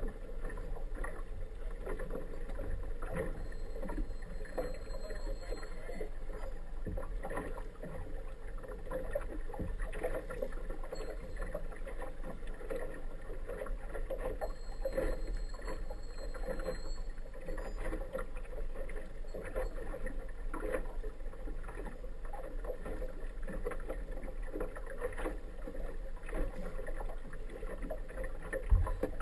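Small inflatable motorboat under way at low speed: a steady drone of its outboard with water lapping and splashing against the hull. A single sharp knock comes near the end.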